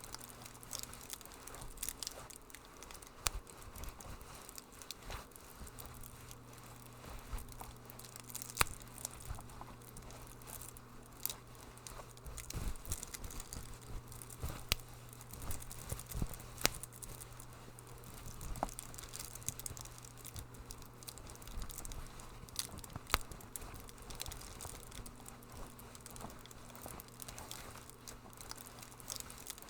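Wood fire crackling in a fireplace: irregular sharp pops and snaps over a soft hiss, with a faint steady low hum underneath.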